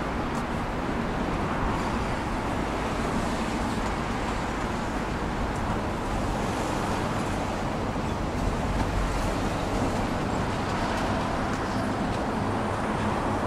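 Steady road traffic noise from cars and trucks passing on the street below.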